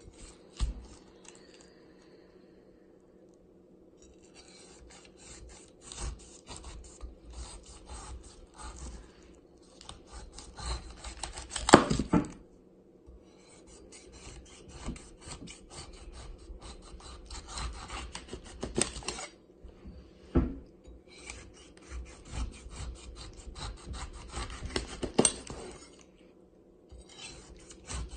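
Chef's knife sawing back and forth through a whole pineapple's tough rind and flesh, a rapid scratchy rasping in several long runs with short pauses between them. One louder knock comes near the middle.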